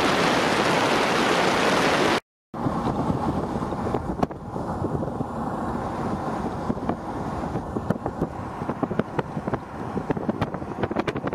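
Wind and road noise from a vehicle driving along a highway, loud and steady for about two seconds. After a brief cut it comes back quieter, a low rumble of wind on the microphone with scattered light clicks.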